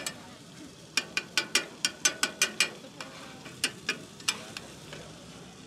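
Metal spatulas clinking and scraping on a flat steel griddle: a quick run of about ten sharp clinks starting about a second in, then three more spaced out.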